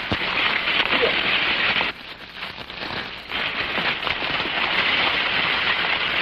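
Horse-drawn buggy rolling along a gravel dirt road: a steady, rain-like crunching hiss of wheels and hooves on the ground, dipping for about a second around two seconds in.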